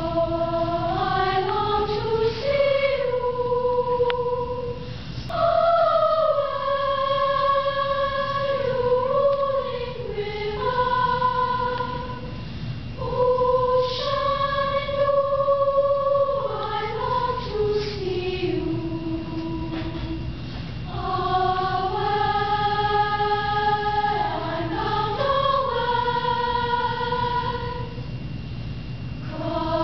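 Middle-school girls' choir singing, mostly long held notes in phrases with brief breaks between them.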